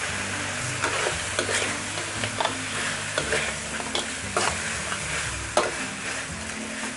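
Metal spatula scraping and knocking against a wok as crab pieces and onion are stir-fried, with irregular clanks about once or twice a second over a steady sizzle of hot oil.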